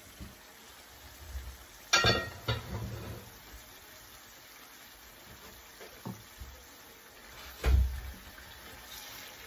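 Curry simmering in a shallow enamelled pan, a steady soft bubbling and sizzle. About two seconds in, the heavy enamelled lid is set down with a ringing clank, and near the end a spatula goes into the pan with a dull knock as the curry is stirred.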